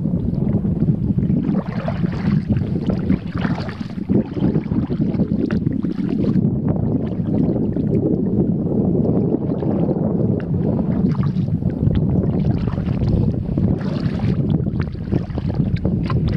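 Wind buffeting the microphone over water, with splashes from kayak paddle strokes coming and going.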